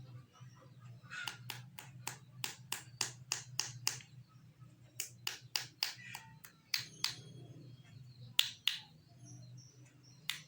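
Runs of sharp taps or clicks, about four a second, from handling and emptying a small medicine packet or container. Under them runs a faint low steady hum.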